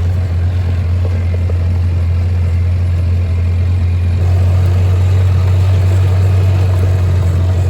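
Vehicle engine running steadily with a loud, low drone, a little louder about halfway through.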